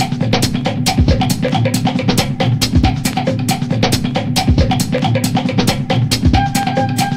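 Background music with a steady drum-kit beat of bass drum and snare.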